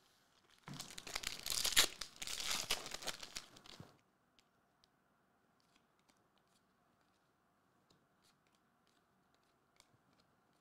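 A foil trading-card pack wrapper being torn open and crinkled for about three seconds, then faint scattered clicks as the stack of cards is thumbed through.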